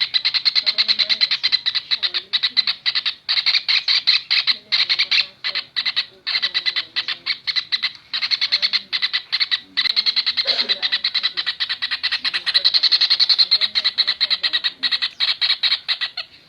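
Kingfisher calling in rapid trills of sharp, high notes, the runs lasting a second or two and broken by short pauses.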